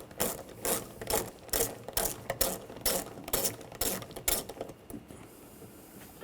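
Ratchet wrench with a 7 mm socket clicking in short, evenly spaced strokes about twice a second as it backs out screws, stopping about five seconds in.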